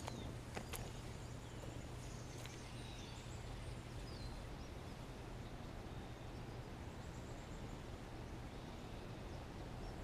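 Outdoor natural ambience: a steady low background hum with faint, brief bird chirps in the middle and a couple of sharp clicks about half a second apart near the start.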